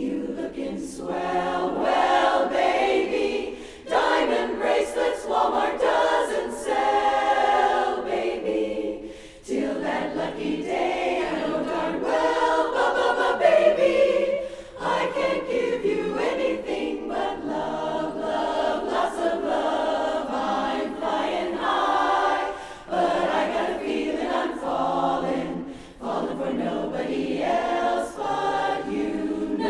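A cappella chorus singing in phrases, with short breaks between phrases.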